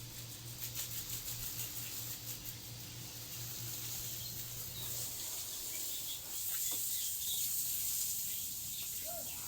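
Wet hand-washed clothes being shaken out and hung to dry: a quick run of soft fabric flaps in the first couple of seconds, then rustling over a steady outdoor hiss.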